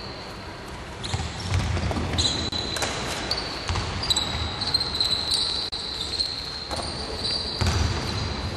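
Basketball game on a wooden indoor court: the ball bouncing repeatedly, with high squeaks of sneakers on the floor and players' voices in the background.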